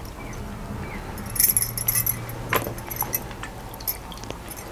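Glass bangles jingling on a wrist while wet brinjal slices are handled and laid into a steel bowl, with a few light clicks of the slices against the steel. The jingling comes mostly in a short run about a second and a half in.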